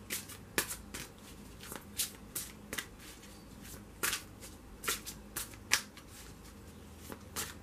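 A deck of tarot cards being shuffled by hand: a dozen or so sharp, irregularly spaced card slaps and snaps.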